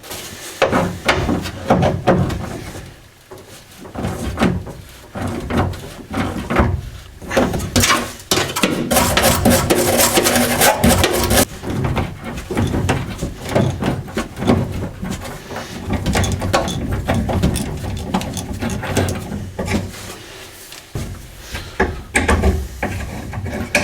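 Hand tools working a seized, rusty nut off a bolt on an old car's rear bumper mounting: irregular metallic clicks, knocks and scraping, with a steady rasping stretch lasting about three seconds near the middle. The fixing is corroded and close to shearing, so it is being eased off bit by bit.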